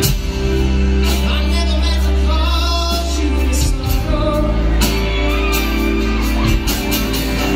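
Live band playing a song with singing: acoustic guitar, electric guitar, bass guitar and drum kit under male and female vocals, with a steady drum beat and held bass notes.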